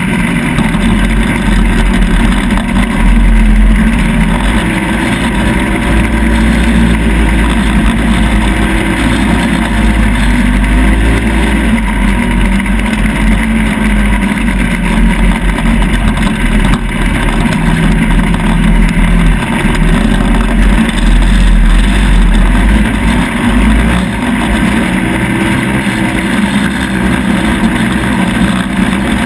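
Off-road vehicle's engine running hard while driving, its pitch rising and falling with the throttle, under heavy wind rumble on the microphone.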